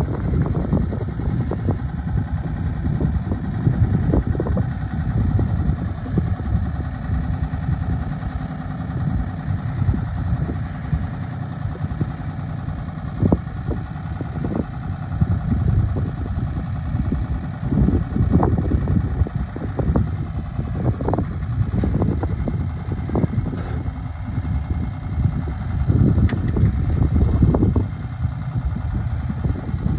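Diesel engine of a 1981 Ford 9000 tandem-axle grain truck running steadily at idle.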